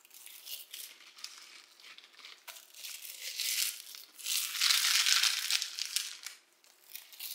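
Small plastic sweet packets being torn open and crinkled, a rustling that comes and goes and is loudest in the middle.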